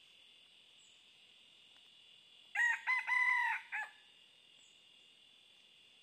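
A red junglefowl rooster crows once about halfway in: a short four-part crow of about a second and a half. A steady drone of insects runs underneath.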